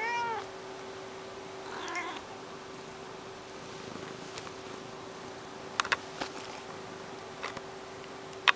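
Black-and-white domestic cat meowing: a short meow at the start and a fainter one about two seconds in. A few sharp clicks come in the second half, over a steady low hum.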